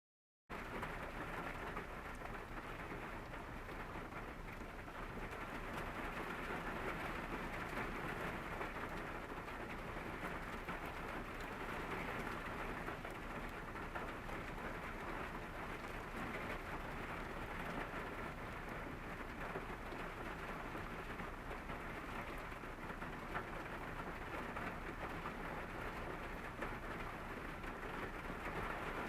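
Steady rain falling on a car's roof and windows, heard from inside the parked car's cabin as an even patter that starts about half a second in.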